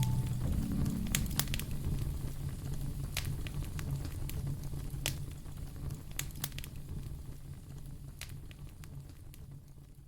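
Fire crackling: scattered sharp pops over a steady low rumble. It fades out gradually toward the end.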